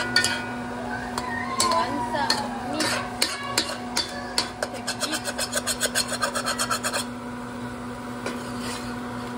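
A utensil scraping and stirring in a cooking pot: scattered scrapes and knocks, then quick, even strokes, about four a second, for a couple of seconds past the middle before they stop. A steady low hum runs underneath.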